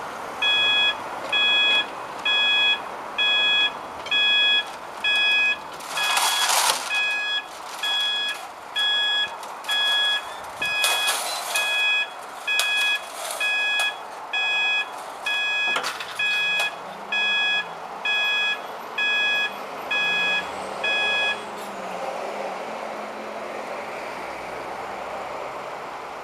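Level crossing warning alarm beeping about once a second, each beep a steady chord of high tones, warning that the barriers are closing for an approaching train. It stops a little over 20 seconds in. Cars pass over the crossing about 6 and 11 seconds in.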